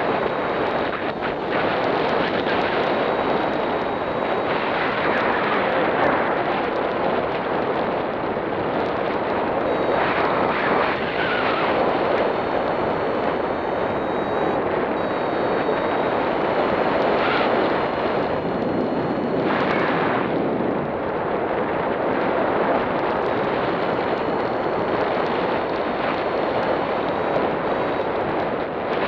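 Steady rush and buffeting of airflow over the camera microphone on a paraglider in flight.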